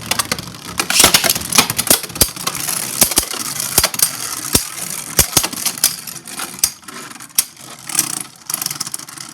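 Two Hasbro Beyblade Burst spinning tops battling in a plastic stadium: a steady high spinning hiss broken by many sharp clicks and knocks as they collide. It thins out near the end as the battle winds down to a survivor finish.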